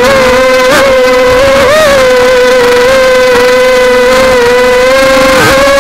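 A 250-size mini quadcopter's brushless motors and propellers whining loudly at a steady pitch, recorded by its own onboard camera, with a few brief dips and rises in pitch as the throttle changes.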